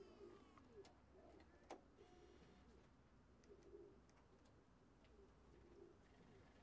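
Faint pigeons cooing, low warbling coos repeating about once a second, with a few faint sharp clicks as a car stereo's buttons are pressed.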